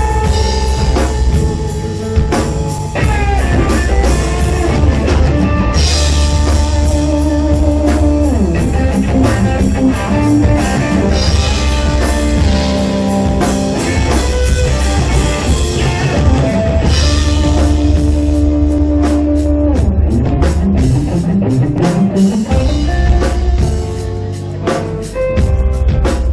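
A rock band playing an instrumental passage: drum kit with constant cymbals, bass, and electric guitar holding long notes with several sliding glides.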